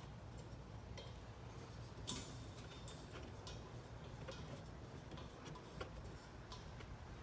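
Faint scattered metallic clicks and taps from handling the valves on a camper's twin propane tanks, with a sharper click about two seconds in, over a low rumble.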